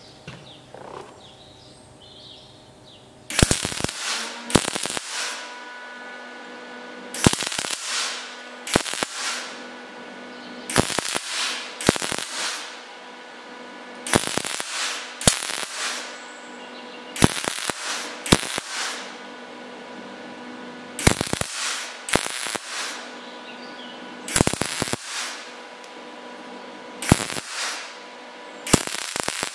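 MIG welder arc striking in a run of short tack welds, a brief burst every second or two starting about three seconds in, with a steady hum between tacks. The tacks are laid about every 10 mm along a gap too wide to weld across, so that the later full weld is caught instead of dropping through.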